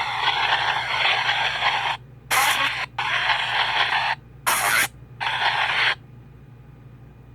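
PXB-07 spirit box sweeping through radio frequencies: chopped blocks of static and radio fragments that cut on and off abruptly with short gaps, falling quiet about six seconds in.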